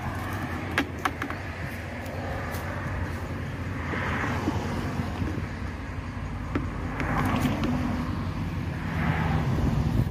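Wet sponge scrubbing a soapy BMW E36 chrome-and-plastic kidney grille over a bucket of suds, in a few soft swishes, over a steady low rumble. A couple of light clicks about a second in.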